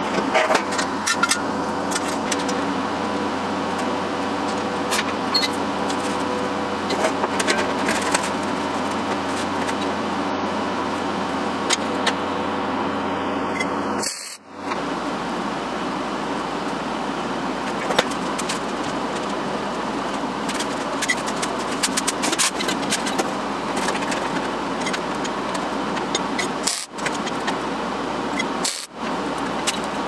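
Steady mechanical hum with light metallic clinks and clicks as steel parts and clamps are handled during fabrication. The hum breaks off briefly about halfway through and twice near the end.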